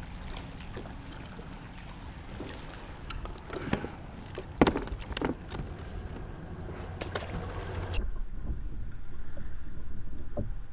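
Choppy water lapping against a plastic kayak hull, with wind on the microphone and a few sharp knocks and clicks from gear being handled in the middle. About eight seconds in it changes abruptly to a duller, steadier rush of wind and water.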